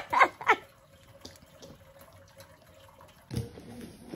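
Faint sloshing and small splashes of a thick liquid mash being handled in a metal basin and buckets.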